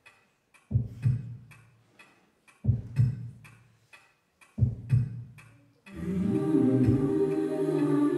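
Intro of a recorded dance track: sharp clock-like ticks about twice a second, with a low double thump repeating about every two seconds. About six seconds in, a sustained chord with humming voices swells in and holds.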